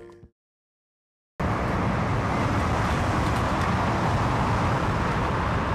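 Music cuts out, then after about a second of silence a steady rumble of road traffic comes in.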